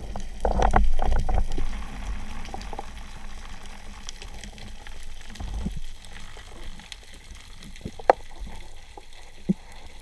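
Muffled underwater noise picked up through a camera's waterproof housing during a freedive: a burst of low rushing water about half a second in, then a steady low murmur with a few sharp clicks near the end.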